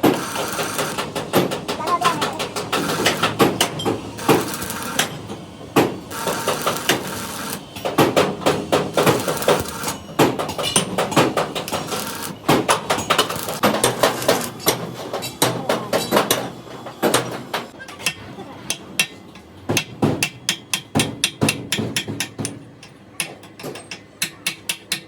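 Hammer blows on metal, many and irregular in pace, turning to lighter, quicker taps in the last several seconds.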